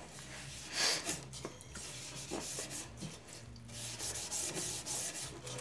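A laminated wooden rifle stock, wet with denatured alcohol, is scrubbed by hand in quick, irregular rubbing strokes as the softened shellac finish comes off.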